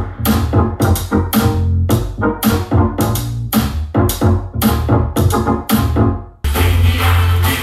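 Electronic music with synthesizer and drum machine, played through a 5.1.2-channel Dolby Atmos soundbar and its subwoofer, with heavy bass. It runs in choppy rhythmic stabs with short gaps, then about six and a half seconds in it drops out briefly and continues as a steady, fuller section.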